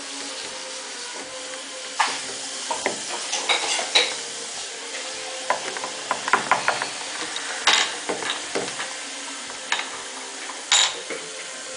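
Scattered clicks, taps and knocks of small plastic toy figures and props being handled and set down on a wooden tabletop, over a steady hiss. The sharpest knocks come about two, four, eight and eleven seconds in.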